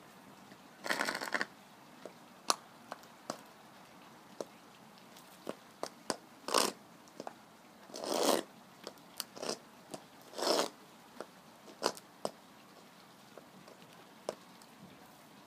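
High-heeled, lug-soled leather boots scraping on a concrete path: several rough scrapes of about half a second each, with short sharp taps of the heels and soles in between.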